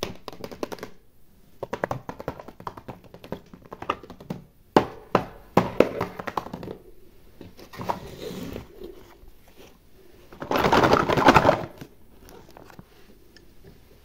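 Hands handling a plastic-wrapped tray of toy play food: a run of light clicks and taps from the hard plastic tray and wrapper, then a louder burst of crinkling plastic wrap lasting about a second and a half, starting about ten and a half seconds in.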